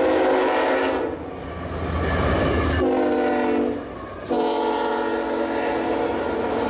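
Freight locomotive's air horn sounding a chord of several notes in repeated blasts: one ending about a second in, a shorter one around three seconds, and a long one from about four seconds on. Between blasts the locomotive's low rumble and the train's wheels on the rails are heard as the double-stack intermodal train passes.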